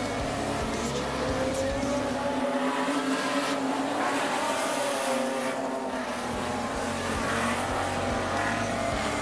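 A pack of Super Stock speedway cars racing around the track, several engines running together with their pitch rising and falling as they lap.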